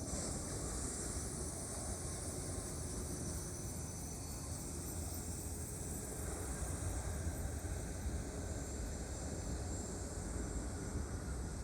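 Jet aircraft engine noise, a steady low rumble with a high hiss and no sharp changes.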